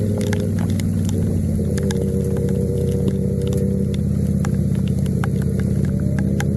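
Motorcycle engine running steadily under way, with wind hiss and scattered sharp ticks on the helmet-mounted microphone. The engine pitch rises a little near the end.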